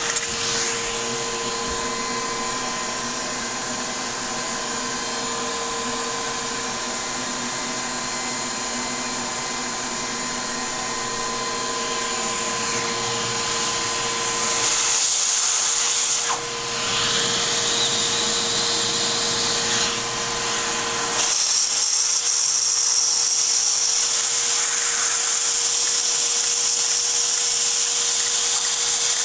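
Lego model steam engine with Brown valve gear running: a steady motor-like whir with the clatter of the plastic crosshead, rods and flywheel turning. The sound shifts about halfway through and again about two-thirds through, becoming slightly louder and brighter.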